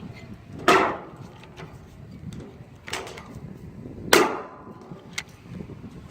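Two loud, sharp knocks with a short ring, about three and a half seconds apart, and fainter clicks between them, from riveting work on a metal gutter with a hand rivet gun.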